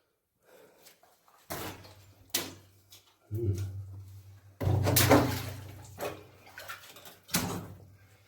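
A person's footsteps and scuffs on the floor of a mine tunnel: a string of thumps and scrapes after a quiet start, the loudest a little past halfway.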